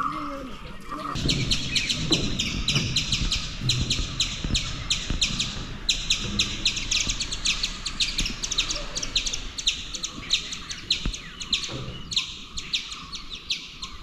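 Birds chirping: rapid high chirps repeating several times a second in long runs, starting about a second in, with brief pauses about halfway and near the end.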